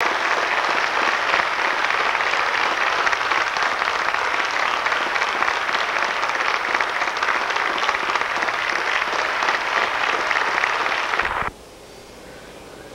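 Audience applauding: dense, steady clapping that cuts off abruptly about eleven and a half seconds in, leaving a much quieter steady background.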